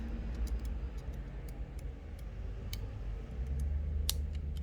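Scattered light ticks and clicks from small repair tools and parts being handled on an iPhone 12 during reassembly, with one sharper click about four seconds in. A steady low hum runs underneath.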